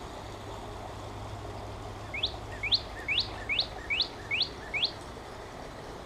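Northern cardinal song played back through a phone's speaker from the Merlin Bird ID app to call birds in: a series of seven clear rising whistled notes, evenly repeated about twice a second.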